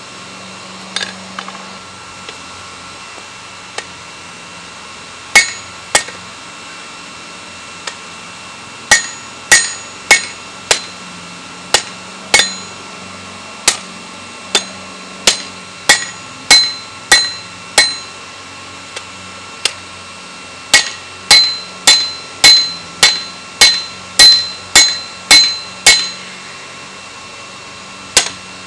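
Hand hammer striking a hot steel spearhead on an anvil: a few scattered blows, then runs of ringing blows at about two a second with short pauses between runs. Each blow leaves a brief metallic ring, over a faint steady hum.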